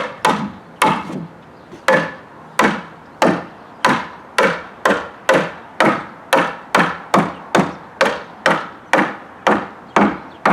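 Hammer striking wood again and again in an even rhythm, about two blows a second that quicken to nearly three a second in the second half, each a sharp crack with a brief ring.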